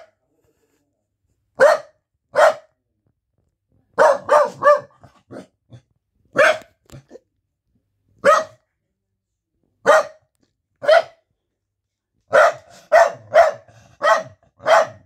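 Corgi barking at visitors: short, sharp barks, singly or in quick runs of two or three, every second or two, with a few softer yips between.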